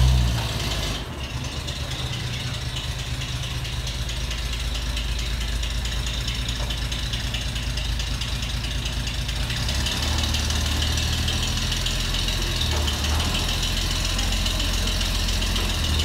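A 1936 Chevrolet truck's engine running near idle, a steady low putter, while the truck creeps slowly backwards. It gets a little louder about ten seconds in.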